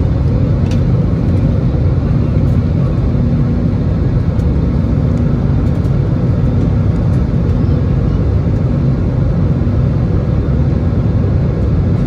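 Cabin noise of an Airbus A320-216 heard from a seat over the wing in climb: its CFM56-5B engines and the airflow make a steady, loud, low rushing drone, with a faint hum on one pitch fading in and out.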